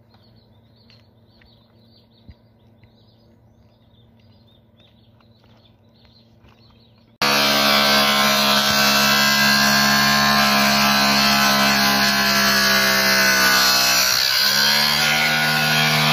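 Faint birds chirping, then an angle grinder with a cutting disc starts suddenly, loud and steady, cutting into a metal electrical enclosure. Its whine sags briefly in pitch under load near the end and then recovers.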